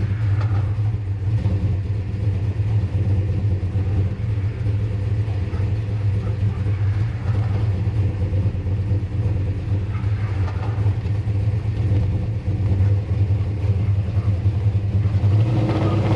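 Ford F100's 429-cubic-inch small-block Ford V8 with Boss 429-style hemi heads and Dominator carburetors, idling with a steady low rumble, heard from inside the cab.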